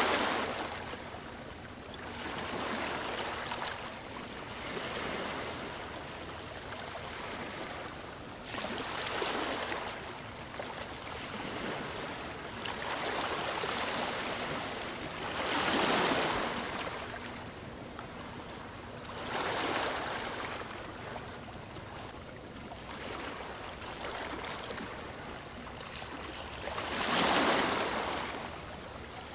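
Ocean waves breaking and washing up on a shore, swelling and fading every few seconds, the loudest surges about halfway through and near the end.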